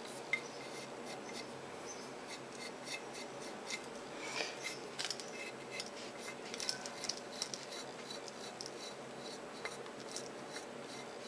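Small blade scraping dried majolica glaze base off a bisque tile's surface in faint, irregular scratching strokes, scraping back and levelling patches where glaze was added as a repair.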